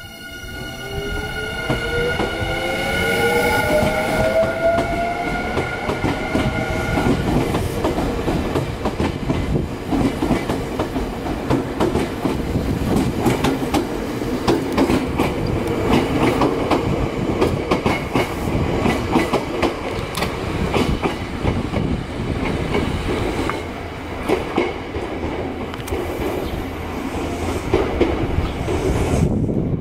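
Nankai 8000 and 1000 series electric train pulling away and gathering speed. Its motors whine upward in pitch over the first several seconds, then the wheels clatter steadily over rail joints and points as the train runs on.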